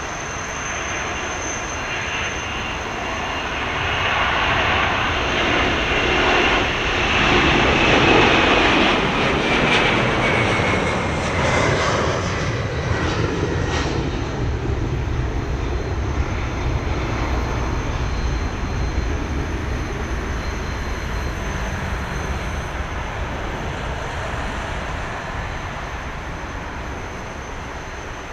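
Landing Airbus A330-300's Pratt & Whitney PW4000 jet engines passing by: a rising jet noise with a whine that slides down in pitch, loudest about eight seconds in, leaving a low rumble that slowly fades.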